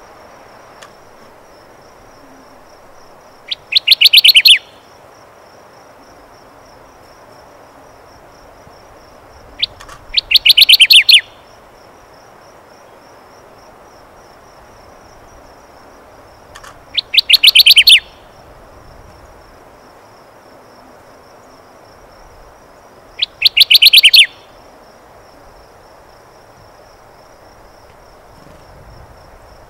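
Kirtland's warbler singing: four short, loud songs about six or seven seconds apart, each a quick run of notes lasting about a second. A faint, steady high-pitched trill runs underneath.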